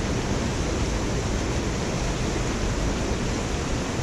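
Steady rushing noise with no separate events.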